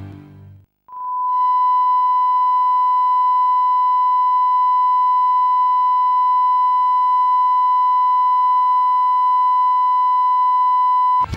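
A steady 1 kHz test tone, the reference tone that goes with television colour bars, held at one pitch for about ten seconds. It starts about a second in, after music fades out, and cuts off suddenly near the end as music returns.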